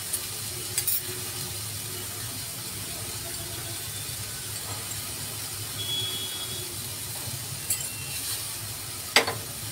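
Corn and shredded chicken cooking gently in butter over a low gas flame, a steady soft hiss, with a few light taps, the sharpest near the end.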